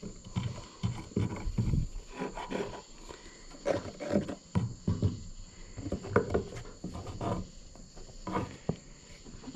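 A squeeze bottle of glue being squirted into notches cut in wood, in many irregular short squirts mixed with handling noises.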